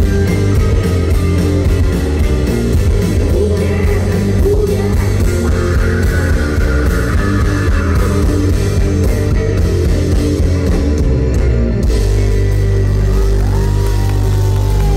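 Live rock band playing loud: electric guitars and drum kit, with some singing. About twelve seconds in the drums drop out, leaving held chords ringing.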